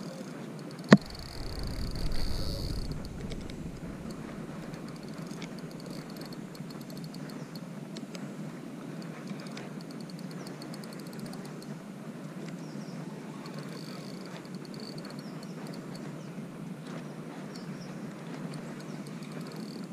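Handling noise from a spinning rod and reel: one sharp click about a second in, then a brief low rumble. Faint, steady insect chirring underneath.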